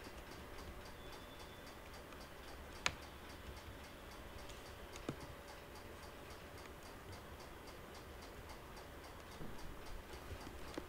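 Faint, even ticking, about three to four ticks a second, over a low background hum and hiss. Two sharper clicks stand out, about three and five seconds in.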